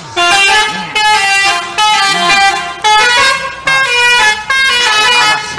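Loud Indonesian 'telolet' bus horn, a multi-trumpet musical horn, playing a tune in held chords that change about once a second.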